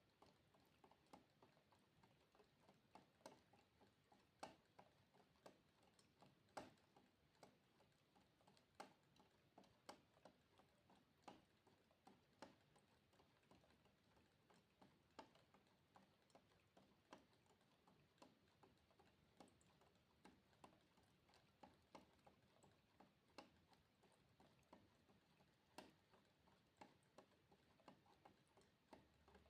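Water droplets dripping: faint, sharp little drips, about two a second, falling at uneven intervals.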